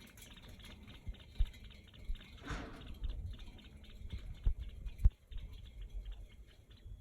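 A small pet animal making rapid, soft clicking, chewing-like noises, with a short scratchy burst about two and a half seconds in and a few low thumps, the loudest near the five-second mark.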